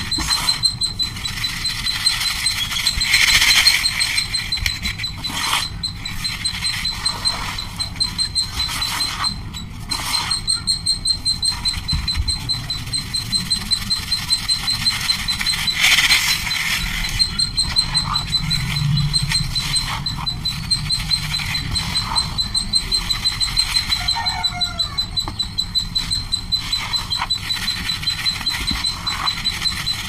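Hands crumbling, rubbing and sifting dry dusty powder in a plastic bowl, giving soft rough crunches in an uneven rhythm. Behind it a bird chirps in a fast, steady, high-pitched trill.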